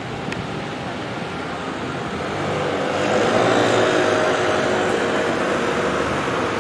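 City street traffic noise: a steady hum of vehicles that grows louder about halfway through as a vehicle comes close, then stays up.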